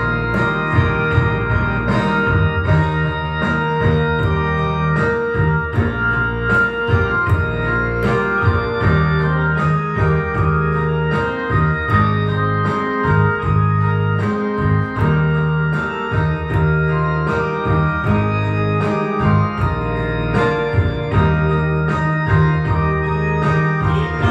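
Electronic keyboard playing an organ-voiced instrumental passage of a gospel song over a steady beat.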